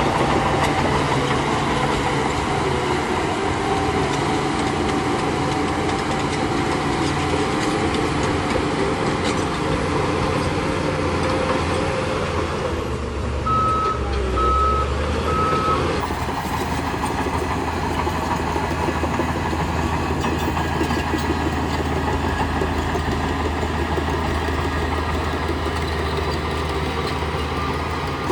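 Heavy diesel engine of a bulldozer running steadily. About halfway through, a reversing alarm beeps three times.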